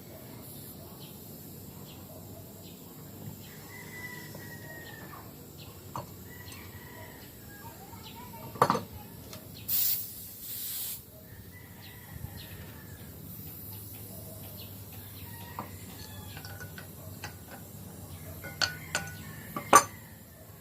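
Sharp metallic clinks, loudest about nine seconds in and a few more near the end, with a short hiss about ten seconds in, over a faint low steady hum and faint chicken and bird calls.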